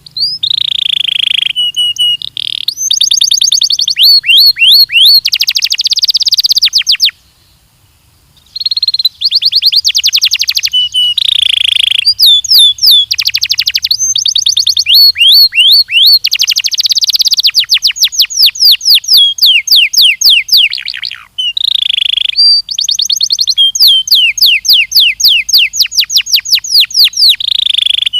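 Belgian canary singing: long phrases of rapid trills and fast runs of repeated notes that sweep down in pitch. The song pauses for about a second and a half about seven seconds in, and breaks briefly about two-thirds of the way through.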